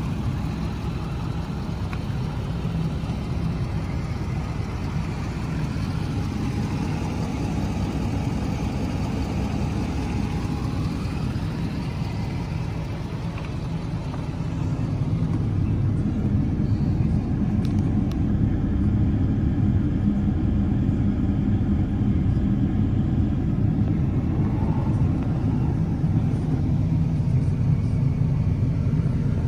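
Ford Power Stroke 6.7-litre V8 turbodiesel idling with a steady low rumble, a little louder from about halfway.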